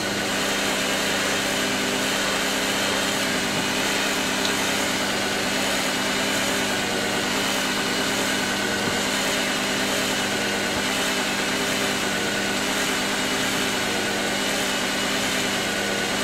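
1956 Singer 201K sewing machine running steadily on its electric motor with an even hum. It is freshly oiled and cleaned, with a new drive belt, and runs smoothly.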